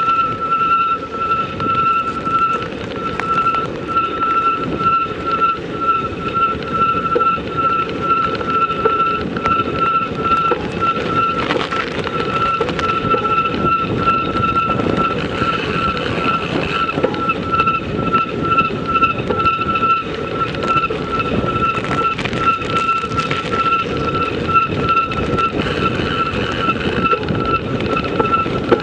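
Continuous riding noise: wind and the rumble of tyres on a snowy road, with a steady high whine.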